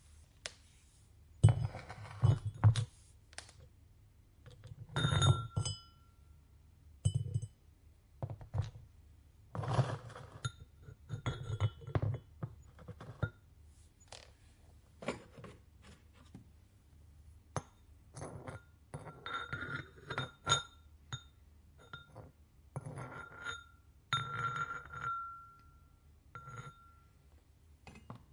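Ceramic pieces and tools clinking and knocking on one another as they are handled, in scattered bursts. Some strikes leave a brief ringing tone.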